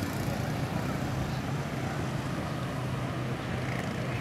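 Steady motor-vehicle noise with a continuous low engine hum.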